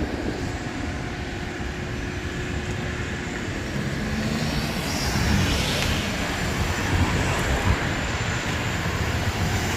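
Steady low rumble of vehicle noise, swelling gradually around the middle and easing off.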